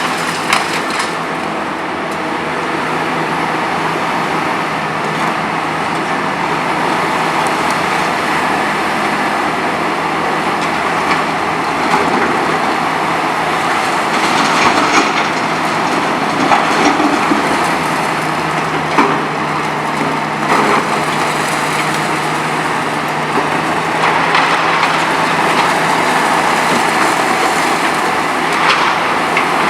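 Hitachi ZX 300LC-6 excavator running steadily under working load, with occasional sharp cracks and crunches as its VTN VF 23 crusher breaks concrete.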